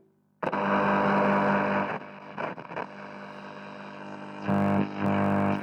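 Radionette Menuett valve radio's loudspeaker while being tuned: after a moment of silence the set cuts in abruptly, giving hum and static with snatches of a station's music that swell and fade.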